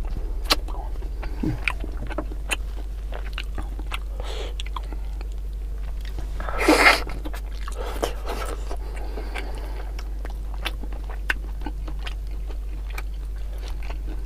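Close-miked eating of bone-in chicken by hand: wet chewing, lip smacking and many short mouth clicks, with one louder mouth noise about seven seconds in. A steady low electrical hum runs underneath.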